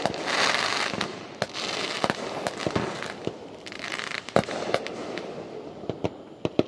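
Aerial fireworks going off: an irregular string of sharp bangs with patches of crackling, the loudest bang about four and a half seconds in.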